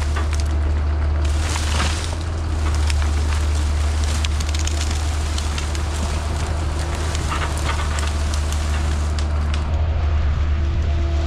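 Excavator's diesel engine running steadily under load, with brush and branches crackling and snapping as they are grabbed and crushed.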